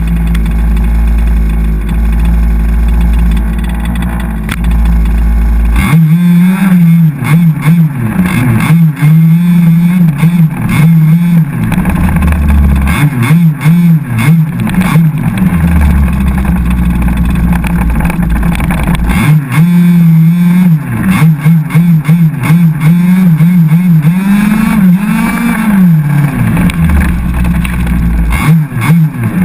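Small two-stroke petrol engine of an HPI Baja 5SC 1/5-scale RC truck, heard from a camera mounted on the truck. It runs steadily for about the first six seconds. Then it revs up and down over and over as the throttle is worked, while the chassis rattles and knocks over the rough dirt path.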